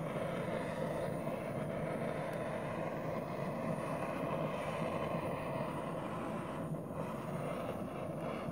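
Handheld torch flame burning steadily as it is passed over a wet acrylic pour to bring up cells.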